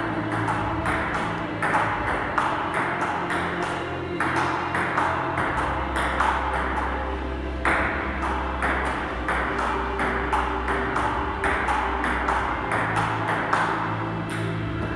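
Table tennis rally: the celluloid ball clicking off the bats and the table in a steady run of sharp knocks, about two a second.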